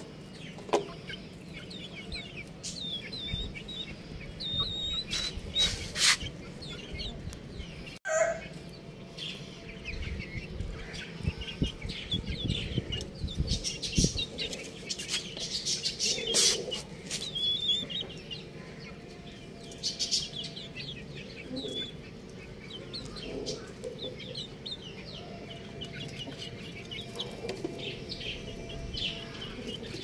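Young domestic chicks peeping, with many short high chirps overlapping throughout and occasional lower clucking notes. A few sharp clicks sound early on, and there is a brief break about eight seconds in.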